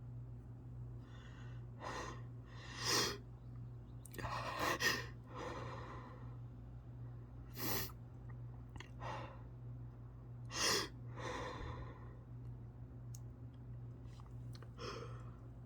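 A sneezing fit: a series of short, sharp sneezes a second or few apart, the strongest three coming in the first eleven seconds.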